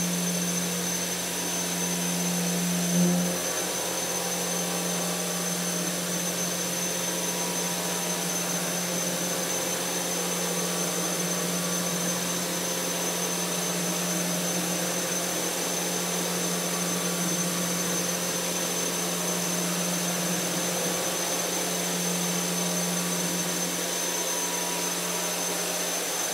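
Four-flute 12 mm end mill on a CNC machine milling a pocket in 42CrMo4 alloy steel: a steady cutting drone with a thin high tone over a hiss, and a brief louder spot about three seconds in.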